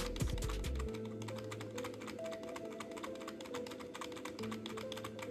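Computer keyboard keys tapped rapidly over and over, several clicks a second: the F12 and F11 keys being pressed repeatedly to call up the boot menu as the PC starts. Background music plays under the clicking.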